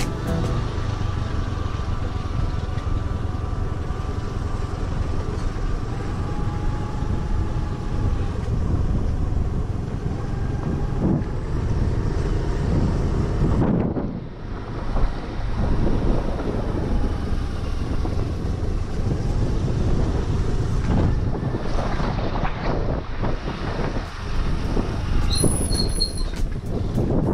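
Honda Activa scooter being ridden along a rough road: a steady low rumble of engine, tyres and road noise, dipping briefly about halfway.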